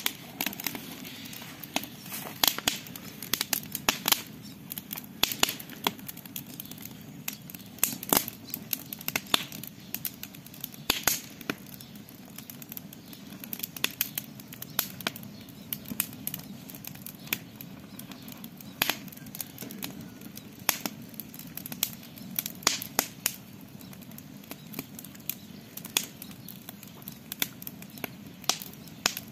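Campfire crackling, with many sharp, irregular pops and snaps over a low, steady burning hiss.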